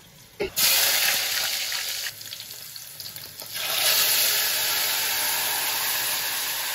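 Hot oil sizzling in a steel pot as oil is poured in over onions, starting sharply about half a second in. A louder, steady sizzle begins about three and a half seconds in as a blended red paste is tipped into the hot oil.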